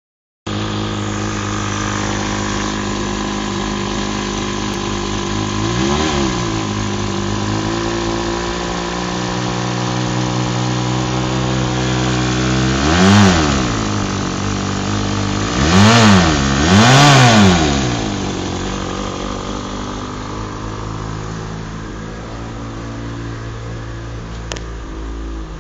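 BMW M5 E34 straight-six with an aftermarket Sebring exhaust silencer, idling steadily. It is blipped four times: a light rev about six seconds in, a sharper one about thirteen seconds in, then two quick revs in a row, each falling back to idle.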